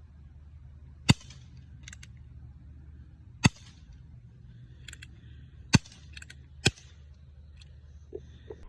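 .177 calibre Remington 1875 replica air revolver firing four shots, with sharp cracks spaced one to two and a half seconds apart and quieter clicks between them.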